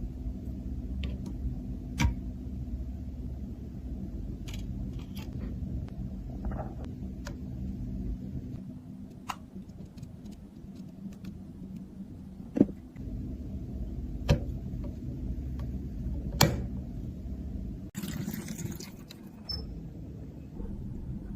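Scattered sharp clicks and taps of small hard objects being handled, over a steady low hum, with a short rustle near the end.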